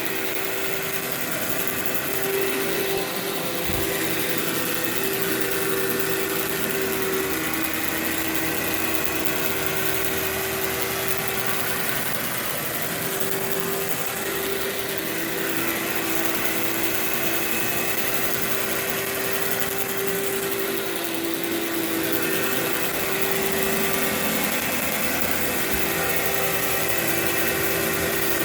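Workhorse vacuum cleaner running steadily as it is worked over carpet, its motor giving an even hum with a slightly wavering tone over a steady rush of air.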